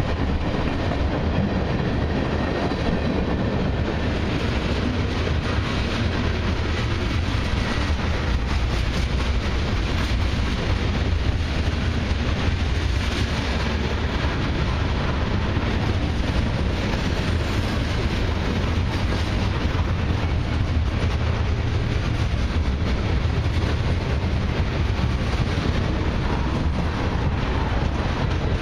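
Freight train tank cars and covered hoppers rolling past close by: a steady rumble of steel wheels on the rails with a rapid clatter of wheels over the rail joints.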